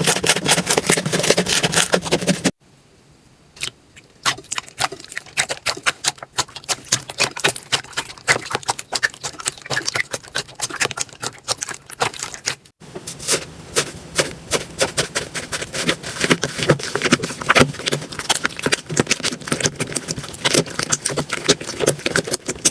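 Slime being handled for ASMR, making rapid crackling and popping clicks. The sound changes abruptly about two and a half seconds in, to sparser clicks, and again about thirteen seconds in, back to dense crackling.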